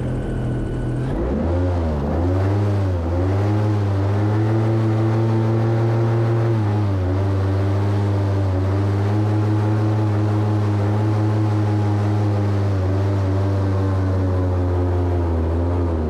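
Airboat engine and propeller running at speed. The engine note shifts about a second in, wavers up and down briefly, then holds steady.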